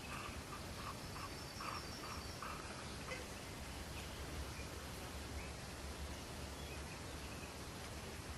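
Faint outdoor background noise: a steady hiss over a low hum, with a run of short, faint chirps in the first two or three seconds.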